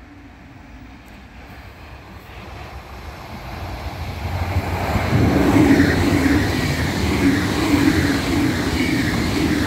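Red electric multiple-unit passenger train approaching and passing close by on electrified track, growing steadily louder over the first five seconds. Then a loud, rhythmic rumble and rattle of wheels on rails as the cars go by.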